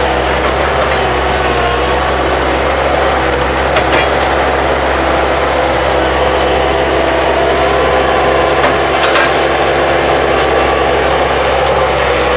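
Skid steer loader engine running steadily under load, with a few knocks from the spade attachment.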